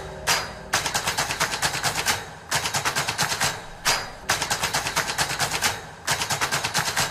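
Rapid volleys of sharp percussive clicks, about eight a second, in runs of one to two seconds with short breaks between, like machine-gun fire: a staccato percussion effect in the soundtrack.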